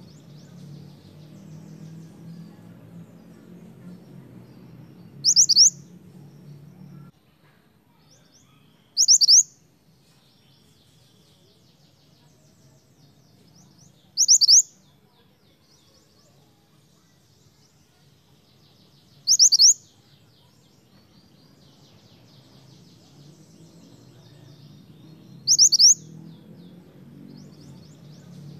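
Minivet (mantenan) giving five short, sharp, high rising calls, each a quick double note, spaced four to six seconds apart, over faint softer twittering.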